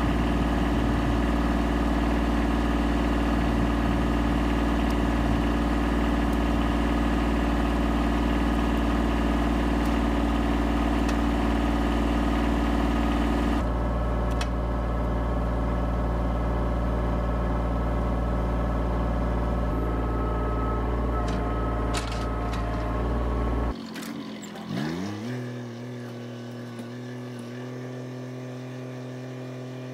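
Kubota tractor's diesel engine running steadily at idle. About three-quarters of the way in the sound drops and the engine note glides up briefly, then settles into a steady, quieter run.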